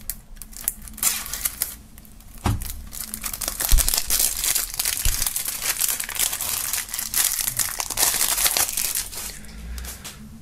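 Cellophane shrink-wrap on a CD jewel case being slit with a knife, then crinkled and peeled off by hand in a long, dense crackle. Two knocks come about two and a half and four seconds in.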